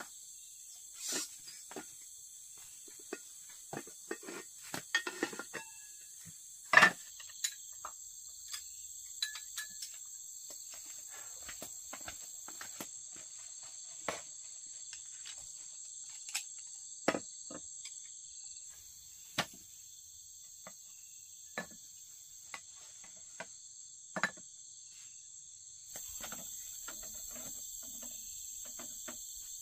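Steady high chirring of crickets and other night insects, with scattered sharp clicks and knocks throughout. The loudest knock comes about seven seconds in.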